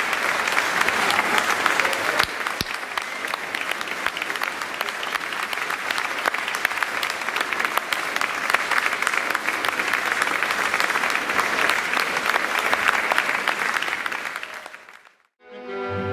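Audience applauding steadily, fading out near the end. Bowed strings of an orchestra start to play just before the end.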